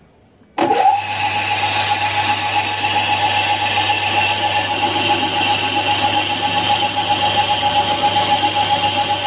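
Electric drill spinning up about half a second in, then running steadily as a 7 mm bit bores out a broken exhaust bolt: a steady motor whine with the rasp of the bit cutting metal over it.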